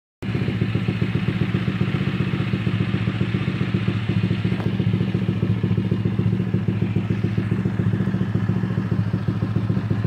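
Honda Click 125i scooter's single-cylinder four-stroke engine idling steadily through a LeoVince Cobra aftermarket exhaust, an even, rapid low putter with no revving.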